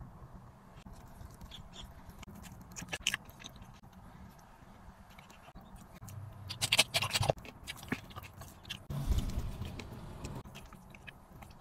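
Crisp-fried chicken tabaka being pulled apart by hand: crackling of the crispy skin and tearing of the meat, loudest about seven seconds in, with a second, duller tearing about nine seconds in, between quiet handling clicks.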